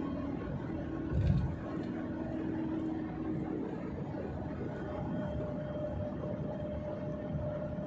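Steady engine and tyre hum of a car driving, heard from inside the cabin. A short low thump about a second in.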